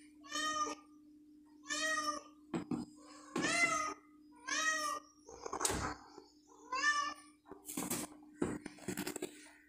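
Domestic cat meowing repeatedly: five drawn-out meows, each about half a second, roughly a second and a half apart, with a few short knocks in between.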